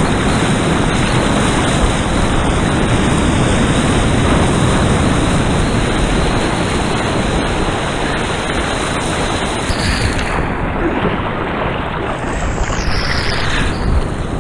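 Churning whitewater and surf close up, a loud, dense, steady rush of water around a head-mounted camera at the water's surface, easing slightly after about ten seconds.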